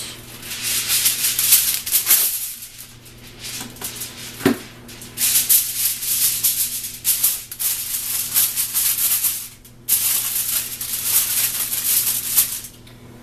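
A large sheet of aluminium foil crinkling and rustling as it is handled and tented over a roast turkey. The crinkling comes in long bursts, with a pause about two seconds in and a brief break near the end.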